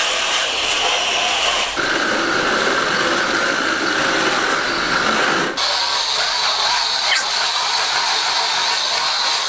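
Axial SCX10 RC rock crawler's electric motor and geared drivetrain whining at a steady pitch. The whine drops abruptly to a lower pitch about two seconds in, then jumps to a higher pitch about halfway through as the throttle changes. The owner suspects the transmission is broken, with a smell of burnt gears.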